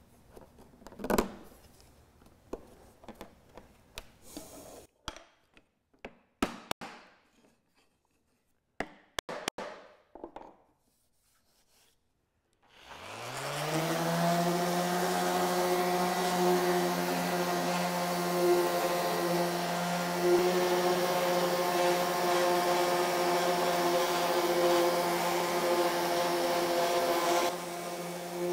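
Light wooden clicks and taps as walnut strips are pressed into a lattice grate. About thirteen seconds in, an electric random orbital sander spins up and runs steadily on the walnut grate, a little quieter near the end.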